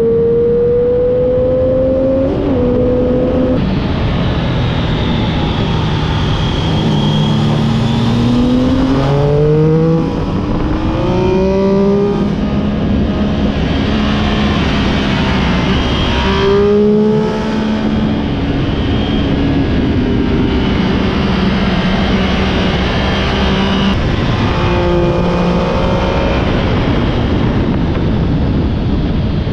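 Onboard sound of a 675 three-cylinder sport motorcycle ridden hard on track: the engine revs climb through the gears, stepping back down at each shift, over heavy wind rush. The engine note drops away briefly twice, about ten and seventeen seconds in, as the bike slows for corners.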